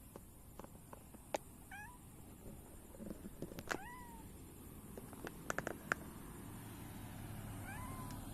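Mackerel tabby cat meowing three times, short rising-then-falling meows about two, four and eight seconds in. A few sharp clicks come in between.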